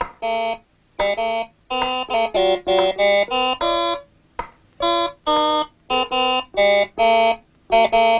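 Electronic organ playing a slow, halting tune as a rehearsal: short separate notes and chords, each cut off sharply with a gap before the next, and a longer pause about four seconds in.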